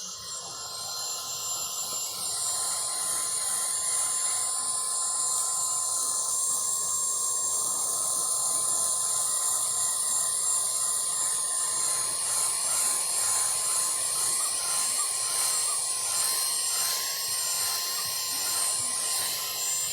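Vacuum cleaner running: a steady rushing motor noise with a high whine, which grows louder over the first two or three seconds and then holds steady.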